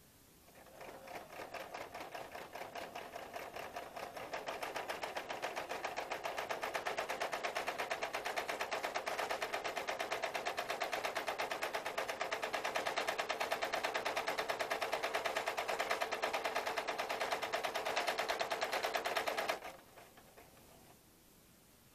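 Sewing machine stitching in a fast, even rhythm, likely running down the sides of fabric handles. It starts slower and picks up speed about four seconds in, then stops suddenly near the end.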